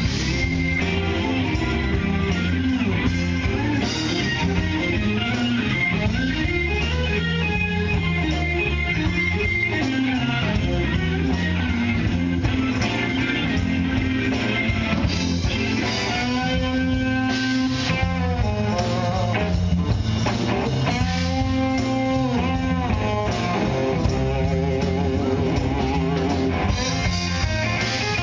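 Live band of electric guitar, bass guitar and drum kit playing, with guitar lines over a steady bass and drum groove and a regular cymbal beat.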